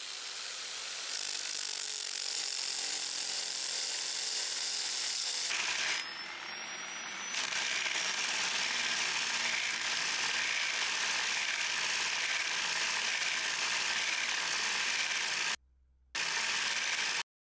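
MONTI MBX bristle blaster with a stainless steel wire belt running along a painted wooden frame, stripping the surface: a steady high hissing buzz of the spinning bristles striking the wood. The motor winds up with a rising whine at the start and again about six seconds in, and the sound cuts out briefly near the end.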